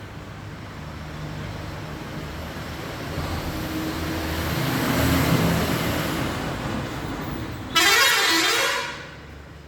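A road vehicle passing by: its engine rumble swells over a few seconds and then fades. Near the end comes a loud, harsh toot lasting about a second.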